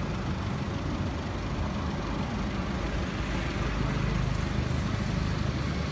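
A vehicle engine running, a steady low rumble that grows slightly louder about three and a half seconds in.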